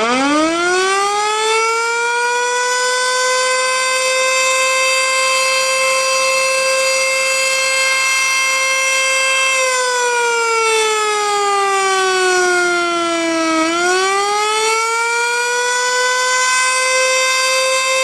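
Sentry 14V-B electromechanical tornado siren winding up from a low pitch to a steady high tone during a siren test. Near the middle it slides down in pitch for a few seconds, then winds back up to the same tone.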